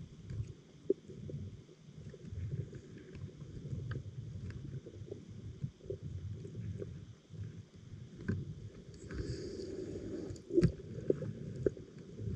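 Muffled underwater noise heard through a GoPro's waterproof housing: an uneven low rumble of moving water with scattered faint clicks, and a sharper knock near the end.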